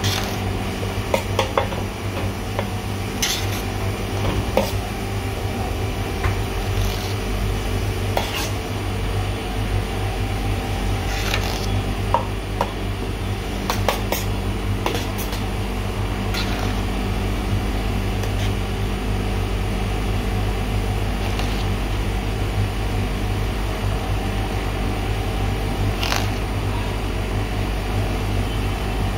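Gelato batch freezer running with a steady hum while a metal spatula scrapes gelato out of its discharge chute, with scattered sharp clinks of metal on the steel chute and pan.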